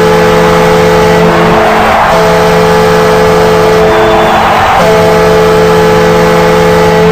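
Devils ice hockey goal horn blaring in long, steady blasts, broken twice for a moment: the signal that the home team has scored.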